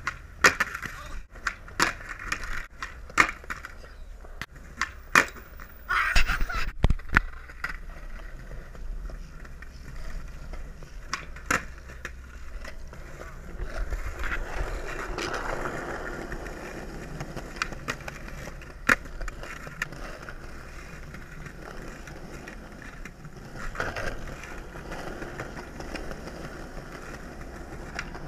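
Skateboard tricks on pavement: sharp clacks of the tail popping and the board landing, many in quick succession in the first seven seconds, then mostly the rough rolling of the wheels with a few more clacks.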